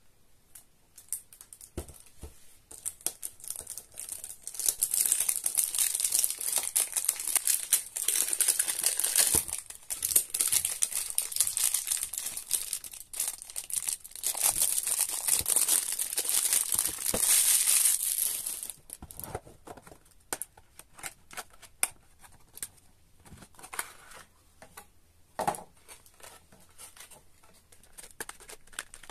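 Cellophane wrapping being torn and crinkled off a perfume box, a dense crackling through the first two-thirds, then sparser crinkles and clicks as the stiff clear plastic insert holding the bottle is handled and opened.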